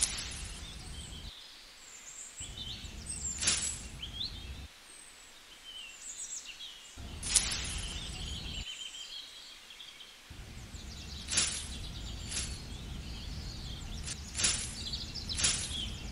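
Birds chirping and singing in the background over a low rumble that drops out and returns several times. About seven short, sharp swishes stand out as the loudest sounds.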